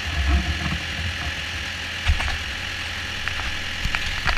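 Ford 7000 tractor's four-cylinder diesel engine idling steadily, freshly started from cold after standing all winter, with a few sharp clicks about two seconds in and again near the end.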